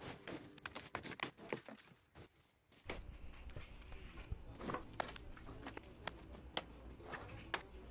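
Faint scattered clicks, crunches and rustles of footsteps and tool handling on debris-strewn ground. A steady low rumble comes in about three seconds in.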